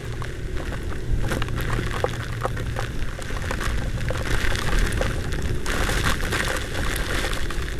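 Heavy rainstorm heard from a moving scooter: wind rumbles over the helmet camera's microphone while raindrops tick against it. The hiss of rain and tyre spray on the wet road grows louder from about six seconds in.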